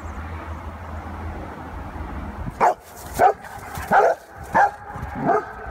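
Bernese mountain dog barking during rough play, five short barks about two thirds of a second apart, starting about two and a half seconds in.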